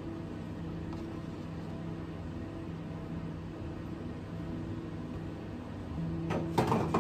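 A steady low hum with a few sustained low tones, then a brief rattling clatter about six seconds in.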